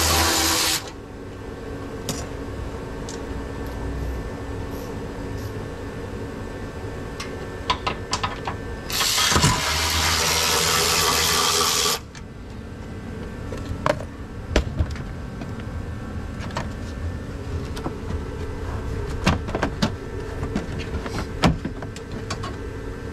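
A small cordless power tool whirs for under a second at the start and again for about three seconds midway, running fasteners out. In between come sharp clinks and knocks of tools and metal parts over a steady low hum.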